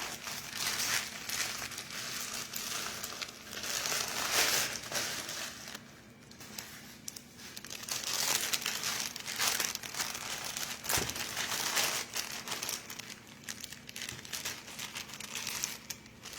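Package of shoes being opened by hand: packaging crinkling, rustling and tearing in irregular bursts, with one sharp knock about eleven seconds in.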